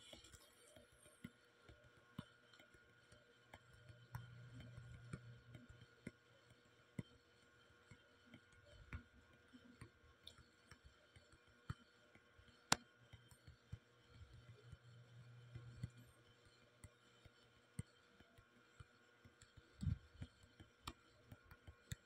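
Near silence: room tone with scattered faint clicks, one a little sharper about two-thirds of the way through, and a faint low hum that comes and goes twice.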